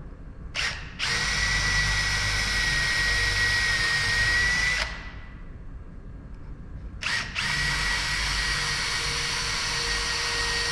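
Cordless drill boring a pilot hole into wood. A short trigger blip is followed by a steady whine lasting about four seconds. After a pause comes a second short blip and another long steady run, starting about seven seconds in.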